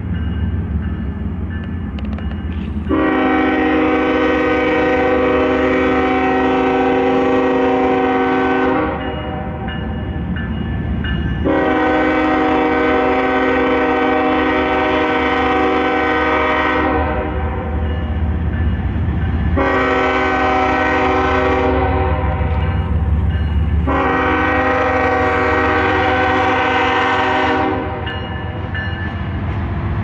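A CSX GE diesel locomotive's air horn sounds the grade-crossing signal: two long blasts, a short one, then a long one, each a steady multi-note chord. Beneath it the locomotives' diesel engines rumble steadily as the freight rolls by.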